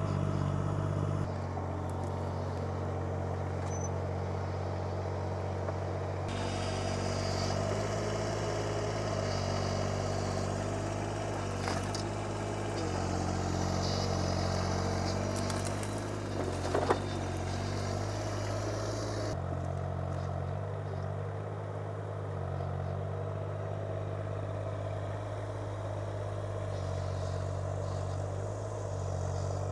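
Excavator engine running steadily under load, its note shifting abruptly a few times, with a couple of sharp cracks or knocks around the middle.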